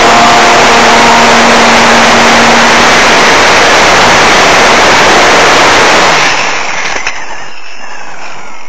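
Wind rushing loudly over the microphone of a camera riding on a Parkzone Radian RC glider in flight, with a steady hum from its electric motor and propeller for the first three seconds or so. About six seconds in the rush drops and thins.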